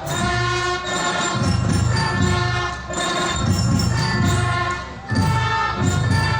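Ceremonial band music played for a present-arms salute: sustained held tones over a steady drum beat.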